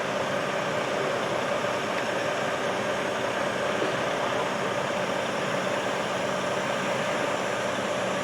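A crane's engine running steadily at idle: a constant, even drone with a steady hum that does not rise or fall.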